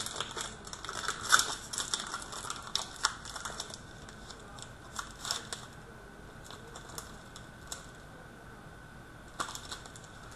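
Foil wrapper of a hockey card pack crinkling and crackling as it is torn open and crumpled, busiest in the first few seconds, then fading to a few scattered crinkles as the cards are handled.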